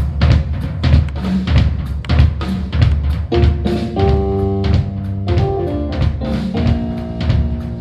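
Jazz quartet playing: drum kit keeping a steady beat with bass guitar underneath, and sustained chords coming in about three seconds in.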